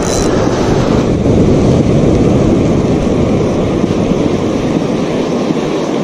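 Steady rushing of breaking surf and wind on the microphone.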